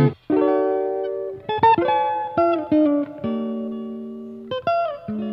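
Background music: chords struck and left ringing, each slowly fading before the next.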